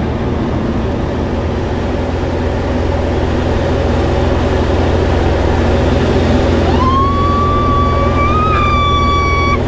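Steady drone of a Pelegrin Tarragon light aircraft's propeller engine. About seven seconds in, a woman passenger lets out one long high-pitched squeal that is held for almost three seconds.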